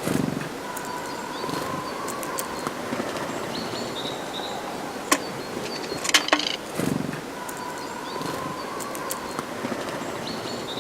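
Tits at a feeder: short high chirping calls, wing flutters at the start and again about seven seconds in, and a few sharp clicks, with a longer, lower steady note twice.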